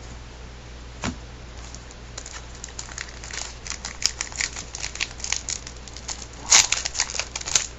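A baseball card pack's wrapper being crinkled and torn open, with one knock about a second in and then busy crackling that is loudest near the end.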